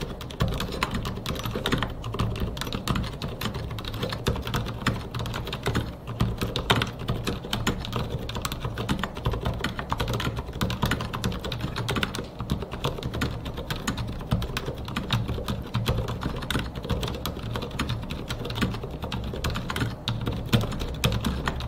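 Continuous fast typing on a Mars Pro Shooting Star mechanical keyboard with fully lubed silent red linear switches and PPS keycaps: a dense, unbroken stream of keystroke clacks.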